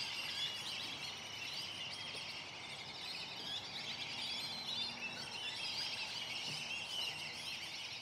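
A dense chorus of many birds chirping and chattering at once, a continuous overlapping mass of short high calls with no single song standing out.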